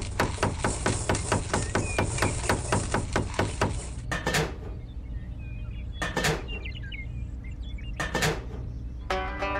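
Small hammer tapping rapidly and evenly on a thin plastic board, about five taps a second, fixing it onto PVC-pipe legs; the tapping stops about four seconds in, followed by three single, longer strokes about two seconds apart.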